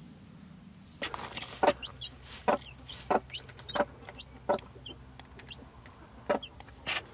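Broody hen clucking in short repeated calls, with newly hatched chicks peeping high and thin between them; it starts about a second in.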